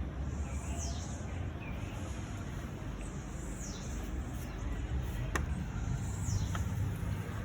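A bird repeating a short, high whistle that falls in pitch, about once every three seconds, over a steady low rumble.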